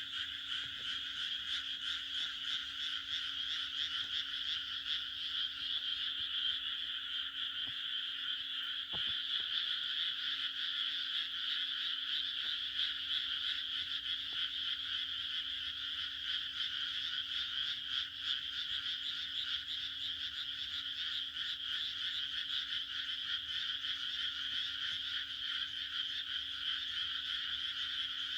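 A dense chorus of many frogs croaking together, a steady unbroken wall of fast calls.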